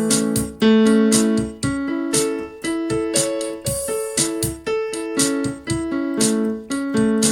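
Piano accompaniment for a singing warm-up exercise, playing a pattern of notes or chords struck about twice a second, each ringing and fading before the next.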